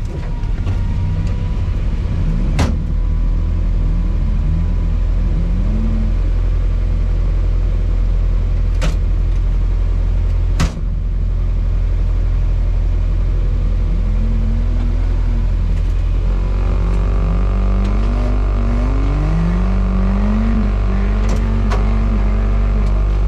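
Lada Niva's engine running under way, its note rising and falling again and again as it revs and changes gear over a constant low rumble, with a few sharp knocks.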